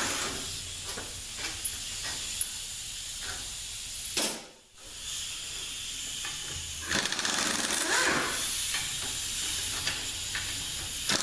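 Pneumatic air ratchet running, its exhaust air hissing steadily as it spins out bell-housing Torx bolts. The hiss cuts out briefly about four and a half seconds in, then starts again.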